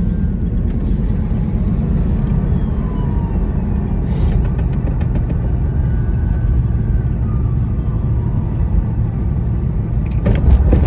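Car on the move: a steady heavy low rumble, with faint tones sliding in pitch above it. A short hiss comes about four seconds in, followed by a quick run of ticks, and a cluster of sharp clicks comes near the end.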